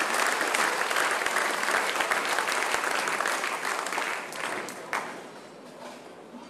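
Crowd of spectators applauding, the clapping thinning out and fading about five seconds in, with one sharp knock as it dies down.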